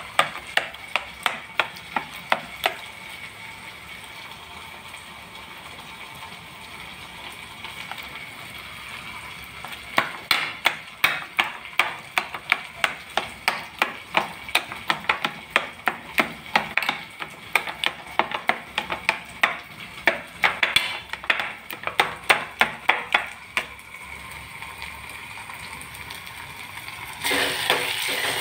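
Steel spoon mashing boiled eggplants on a steel plate, clinking against the plate about three times a second, with a quieter stretch in the first half. Near the end a steady sizzle of frying starts in the pan on the stove.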